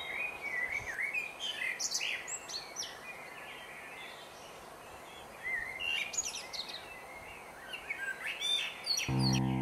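Small birds chirping and singing in short high phrases, in clusters with a lull in the middle, over a faint outdoor background. Music with sustained notes comes in near the end.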